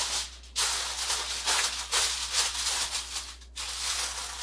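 Plastic wrap crinkling and rustling as it is pulled and pressed by hand around a foil-covered aluminium casserole pan, with two brief pauses.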